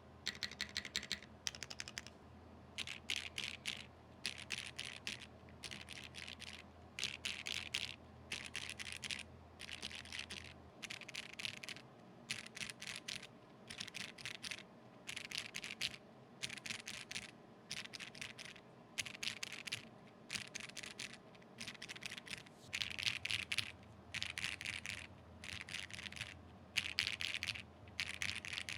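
Acrylic60 60% custom mechanical keyboard with an acrylic case, its alpha keys typed in short runs of clicky keystrokes about once a second. The case is first empty of foam, then has case foam from about a third of the way in, then case and plate foam from about two-thirds in.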